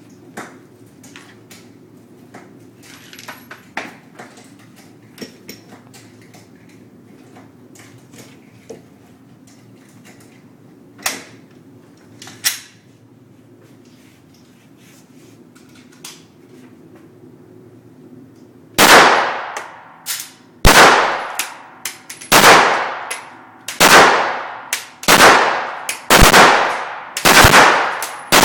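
Glock 17 9mm pistol firing about eight shots, a little over a second apart, each one sharp with a ringing tail, starting about two-thirds of the way in. Before that there are faint clicks and two fainter sharp bangs.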